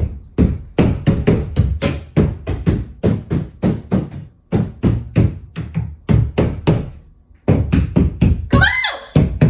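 Rapid, heavy knocking thuds, about three a second, with a short pause about seven seconds in and a brief rising squeak near the end.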